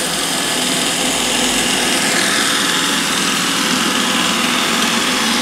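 iRobot Roomba robot vacuum running on a hardwood floor: a steady whir of its vacuum motor and brushes as it cleans.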